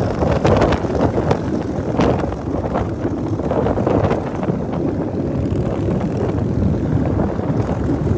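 A group of cruiser motorcycles running at motorway speed, heard from one of the bikes, with heavy wind buffeting on the microphone. The noise is steady, with short gusts throughout.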